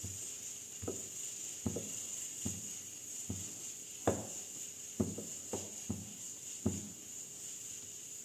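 Rolling pin rolling out a ball of bread dough into a round, back and forth, with a soft knock at each stroke, roughly once a second.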